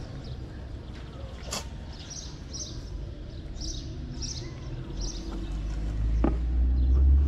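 Small birds chirping over and over in the background, with a sharp click about one and a half seconds in and a low rumble that builds near the end.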